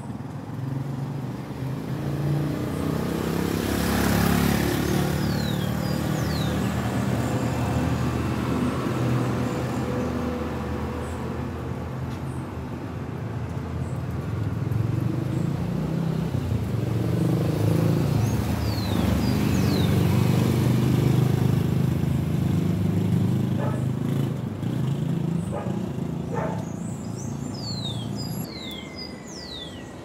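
Road vehicles running past along the street, their engines swelling up and fading away twice, with a few short high chirps near the end.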